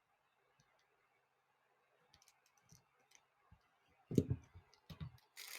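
Faint, scattered clicks, then two dull knocks about four and five seconds in, and a rustling, crinkling noise that starts just before the end.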